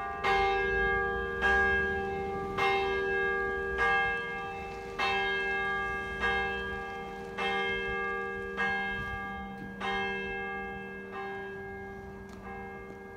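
Church bells from a peal cast by the Jules Robert foundry of Nancy (E-flat, F and G), ringing with a stroke about every 1.2 seconds, each stroke ringing on into the next. The strokes grow fainter toward the end.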